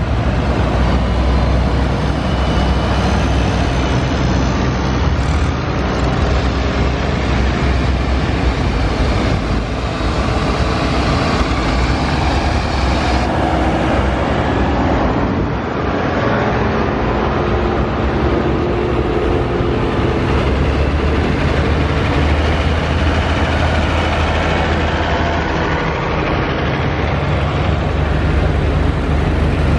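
Farm tractors driving past one after another, engines running steadily: an International Farmall 656, then a modern cab tractor, then an older Farmall.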